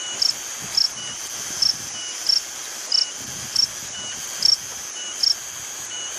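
Insect calling from inside a hole under a rock: a steady high buzz with short sharp chirps repeating about every half second to a second.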